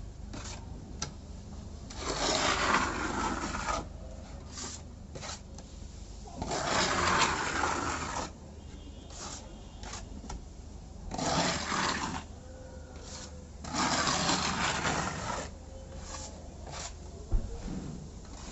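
Putty blade spreading and scraping texture compound over a wall: four long scraping strokes a few seconds apart, with shorter scrapes and light knocks between.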